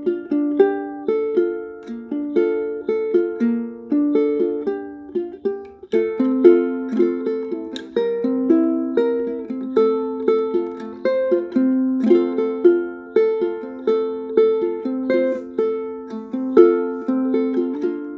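Solo ukulele tuned with a low G string, played fingerstyle: a melody of single plucked notes and chords, each note ringing and fading.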